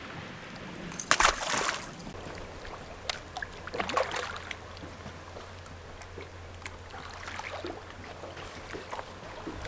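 A short water splash about a second in as a small bass is let go over the side, then the steady low hum of the boat's electric trolling motor under faint clicks of fishing tackle.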